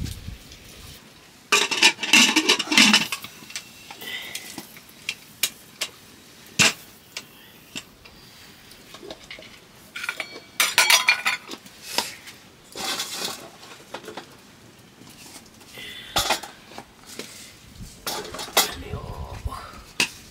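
Metal cooking pots, lids and utensils clattering and clinking in several short spells, with single knocks between.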